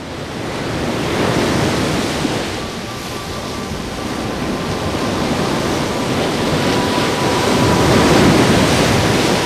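Ocean surf washing ashore. It fades in at the start and swells to its loudest about eight seconds in.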